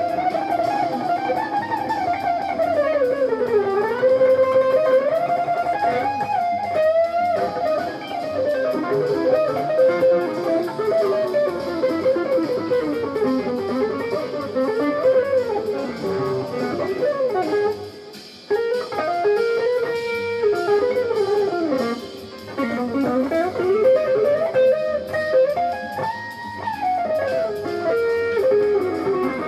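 Jazz fusion music led by an electric guitar playing a single-note melody line, with smooth slides and bends between notes and brief pauses about two-thirds of the way through.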